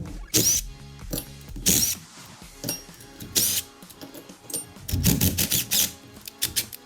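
Tool loosening the 10 mm bolts of the transmission's gear-selector cover: several short, sharp bursts, then a quick run of strokes about five seconds in, over background music.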